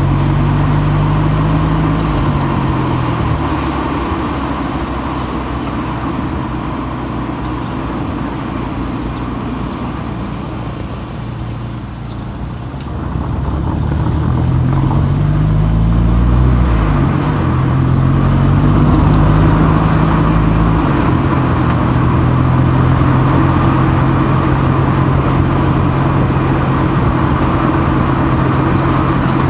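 Car engine and tyre noise heard from a microphone mounted on the outside of the car body while driving. The engine note falls early, eases off, then rises as the car accelerates, with two sudden drops in pitch like gear changes, and settles into steady cruising.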